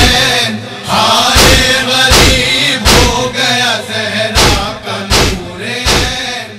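Voices chanting a noha, a Shia lament, over a steady beat of chest-beating (matam), one sharp slap about every three quarters of a second.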